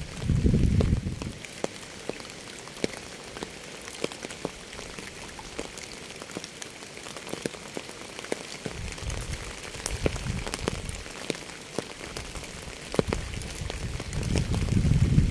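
Steady rain, a constant hiss with many separate drops ticking sharply. Low rumbling swells rise and fade near the start, about two-thirds of the way through, and again toward the end.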